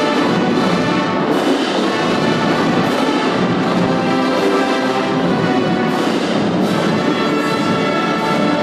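A full marching band playing in unison: flutes, clarinets, saxophones, trumpets and sousaphones sounding together in a loud, sustained passage, with occasional sharp accents.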